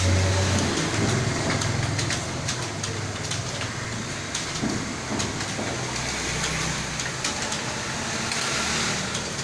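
Computer keyboard keys being typed, irregular clicks a few to the second, over a low steady background rumble.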